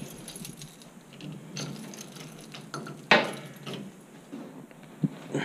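Keys jangling and clicking at an apartment door as it is locked, with one sharp clack about three seconds in.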